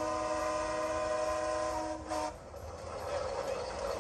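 Steam traction engine whistle blowing a steady chord of several tones, heard through a display screen's speaker, cutting off suddenly about two seconds in. Fainter steady noise follows.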